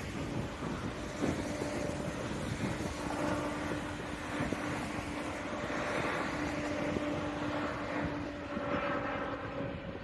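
Jet airliner on landing approach, its engines giving a steady hum with a whine that builds as it draws nearer, over gusty wind buffeting the microphone.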